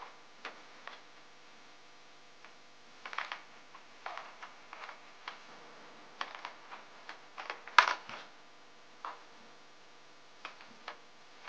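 Hands handling a plastic Nerf blaster: scattered clicks, taps and rustles of the plastic shell and parts, with one sharper knock about eight seconds in.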